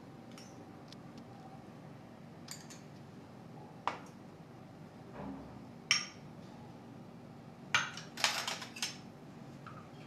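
Metal spoons clinking against glass bowls in scattered single taps, with a quick run of several clinks near the end.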